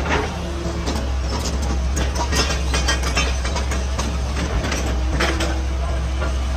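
Heavy excavator's diesel engine running steadily, with scattered clatter and knocks of rock and steel as it works broken stone.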